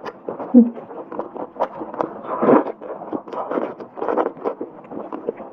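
Close-miked chewing and wet smacking of spicy braised pork blade-bone meat, with soft tearing as meat is bitten from the bone. Irregular wet clicks throughout, with a louder smack under a second in and another about two and a half seconds in.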